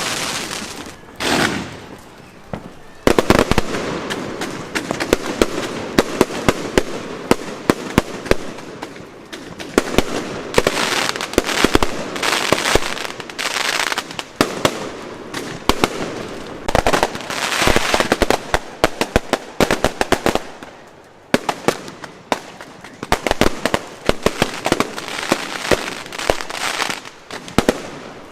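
Fireworks going off continuously: many sharp bangs and cracks in quick succession over steady crackling, with a short lull about three quarters of the way through.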